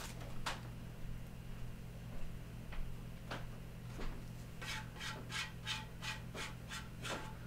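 Gloved hand spreading thickened epoxy paste on the scarf joint of a western red cedar stringer. A few scattered scrapes come first, then in the second half a run of about nine quick rubbing strokes, about three a second. A steady low hum runs underneath.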